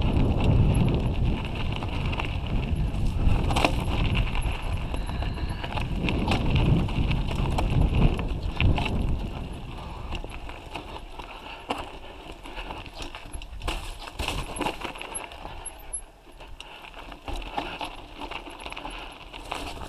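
Mountain bike riding down a rough dirt and stony trail, heard from a camera mounted on the bike: tyres on gravel, with irregular rattling clicks and knocks from the bike over stones. There is a low wind rumble on the microphone, heavier in the first half and easing off after about halfway.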